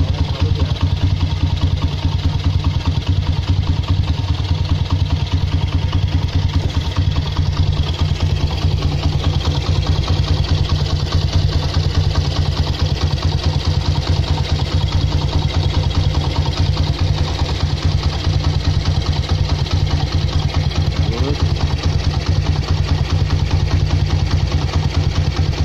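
Honda CB's single-cylinder four-stroke engine idling steadily, heard close up at the cylinder head. This is a test run after its cam chain tensioner has been fixed to cure the rattle of a slack cam chain.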